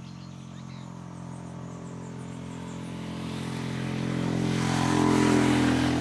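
A motor engine running steadily, growing louder to a peak about five seconds in and starting to fade at the end, like a vehicle passing by.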